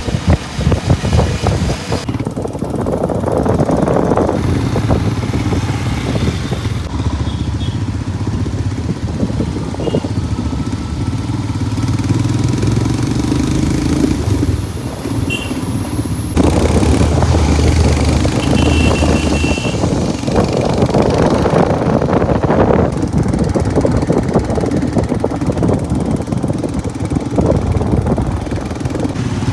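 Motorcycle engine running as the bike is ridden, its pitch rising and falling with the throttle, with wind rushing over the microphone at times.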